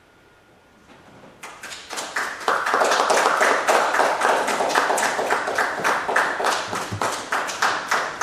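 A brief silence, then audience applause that begins about a second in and quickly builds into steady, dense clapping.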